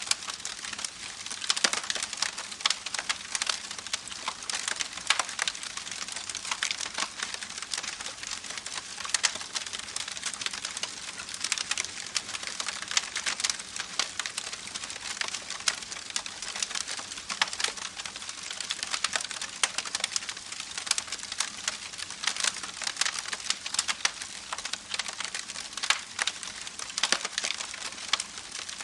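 Campfire crackling, with many sharp, irregular pops and snaps over a steady rushing hiss of a babbling creek.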